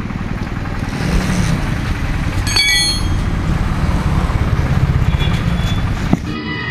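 Steady low rumble of road traffic and vehicle engines, with a single metallic clink and brief ring about two and a half seconds in and a knock near the end as a heavy spare wheel is heaved onto a rear-door tyre carrier. Music cuts in just before the end.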